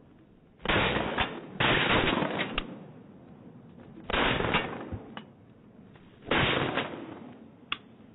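Four shotgun shots, the first two close together, each trailing off in a long echo. A few fainter sharp cracks fall between them.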